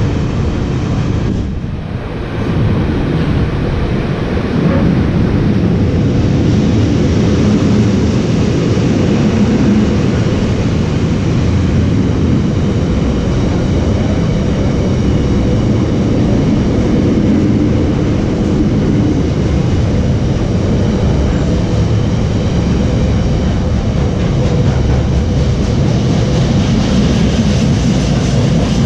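Container wagons of a Class 66-hauled freight train rolling past, a steady loud rumble of wheels on rail with a brief dip about two seconds in.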